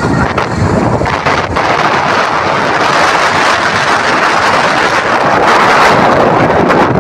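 Wind rushing over the microphone of a moving vehicle, a loud steady roar over the vehicle's running rumble, swelling slightly near the end.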